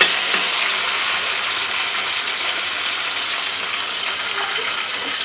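Browned onions and freshly added chopped tomatoes sizzling steadily in hot oil in a kadhai on a gas burner.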